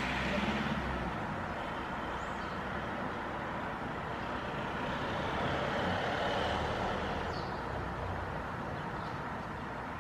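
Steady rumble of road traffic, with a few faint, short high chirps.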